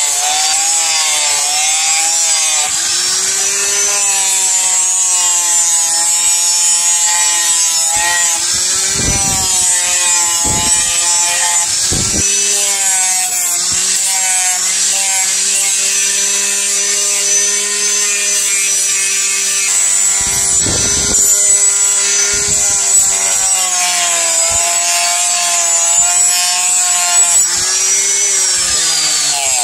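Handheld angle grinder with a sanding disc grinding the flat of a steel billhook blade made from a chainsaw guide bar. The motor's whine keeps sagging and rising in pitch as the disc is pressed onto and eased off the steel, with a steady gritty hiss and a few short knocks.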